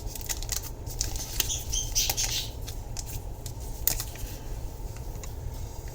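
Caged pet birds (parakeets and a society finch) chirping in the background, with a cluster of high chirps about two seconds in, among scattered light clicks and taps from kitchen handling.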